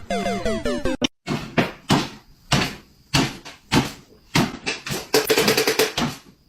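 A series of knocks and thumps, coming faster and closer together near the end, after a brief snatch of music with sliding notes.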